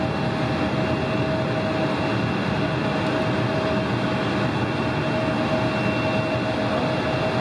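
McDonnell Douglas MD-87 air tanker's rear-mounted Pratt & Whitney JT8D turbofans running: a steady roar with a constant mid-pitched hum and a high whine.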